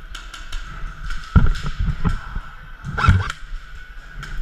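Scattered sharp ticks and snaps from airsoft guns firing and BBs hitting around an indoor field, with two heavier thumps about a second and a half and three seconds in.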